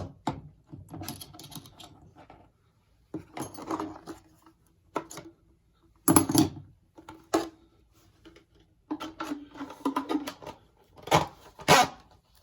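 Hand tools and their packaging being handled: irregular clicking and rattling, with a few sharper knocks, the loudest about six seconds in and twice near the end.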